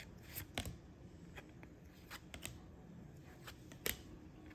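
A stack of NBA Hoops basketball trading cards being flipped through by hand, each card slid off the front and moved to the back. There are several soft, irregular flicks of card stock, the sharpest near the end.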